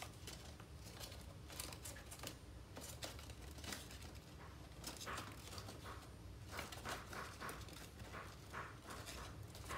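Folded paper rustling and crinkling in short, irregular crackles as hands open out the layers of a paper origami Christmas tree.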